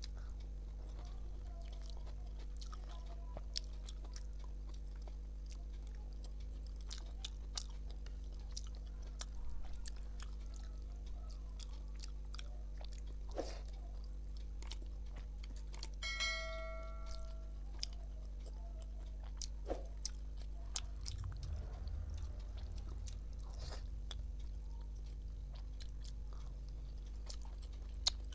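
A person eating rice and curry by hand, with close-miked chewing and faint scattered soft clicks, over a steady low electrical hum. About halfway through, a short ringing tone with several pitches sounds for about a second and a half.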